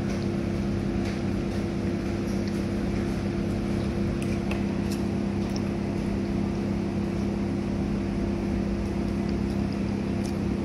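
Steady machine hum with two constant low tones, with a few faint clicks and taps over it.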